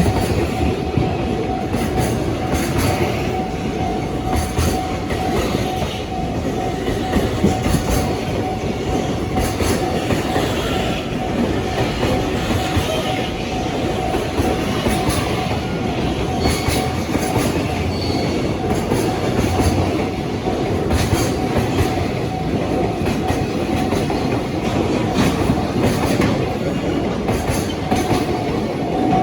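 Long freight train of container wagons rolling past at speed, a steady rumble with the wheels clattering over rail joints in regular paired clicks as each bogie passes. A level-crossing warning tone sounds for much of it.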